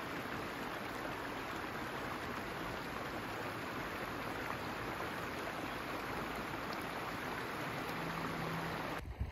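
Shallow stream running over stones, a steady rushing and rippling of water that cuts off abruptly about nine seconds in.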